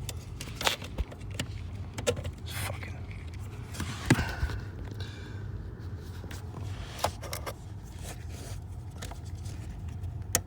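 Scattered small clicks, knocks and rustling from hand-handling a car's brake pedal switch as it is plugged into its connector and pushed and twisted back into its mount under the dash, with one sharper click about four seconds in.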